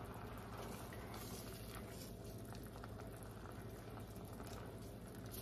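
Coconut-milk dill cream sauce simmering in a pan, a faint steady bubbling with fine crackles, over a low steady hum.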